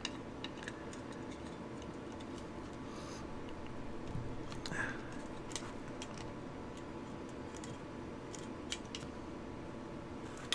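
Faint, scattered metallic clicks and ticks of pliers working at the mainspring and small steel parts of a Ruger LCP pistol, a few seconds apart, over a steady low hum.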